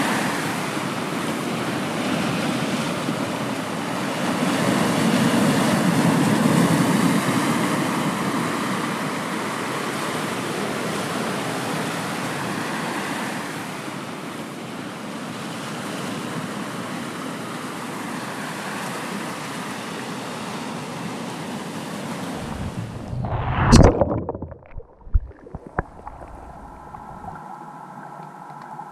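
Sea water washing in a steady rush, swelling a few seconds in. About 23 seconds in comes a loud splash as the camera plunges into the water inside a fishing net, and the sound turns quiet and muffled underwater, with a few knocks.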